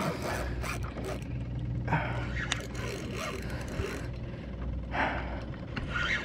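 Hard breathing in short gasps, about five of them, over scraping and rustling from a spinning reel being cranked against a hooked fish, with a steady low rumble underneath.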